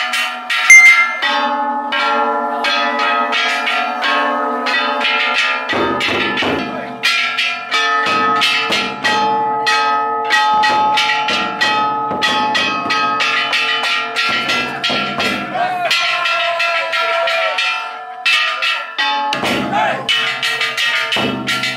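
Hanging brass kane gongs on an Ishidori festival float, clanged rapidly and without a break, their ringing overlapping. From about six seconds in, heavy strokes of the float's large taiko drum join at intervals.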